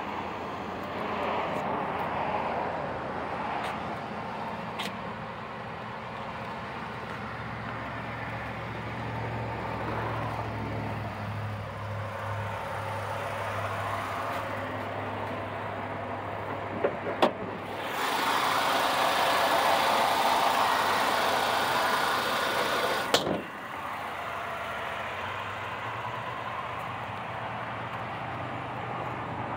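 A car engine idling steadily, a low even hum. About halfway through, a louder rush of noise lasts about five seconds, starting and stopping abruptly with a click at each end.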